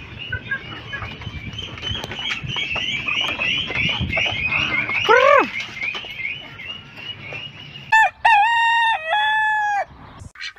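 A farmyard flock of chickens calling and clucking continuously, with one louder short squawk about five seconds in. About two seconds before the end, the farmyard sound gives way to a single clean rooster crow, a cock-a-doodle-doo lasting about two seconds.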